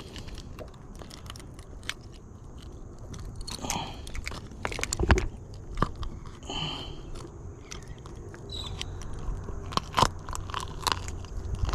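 Close handling noises as a flounder is taken off the measure and out of the way: irregular crackles, clicks and scrapes, bunched in a few spells, over a low steady rumble.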